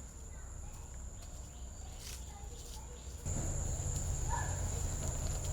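Rural outdoor ambience: a steady, high-pitched insect drone with a few faint bird chirps. The background gets louder about three seconds in.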